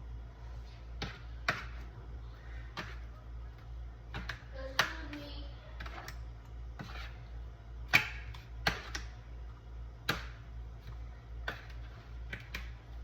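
Scattered sharp clicks and knocks of kitchen things being handled, irregular and a second or so apart, over a low steady hum.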